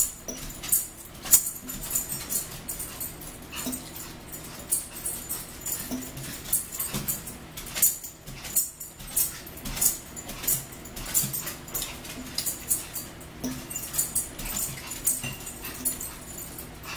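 Eating sounds: forks clinking and scraping on plates, with chewing and mouth smacks, as short, sharp clicks at irregular intervals.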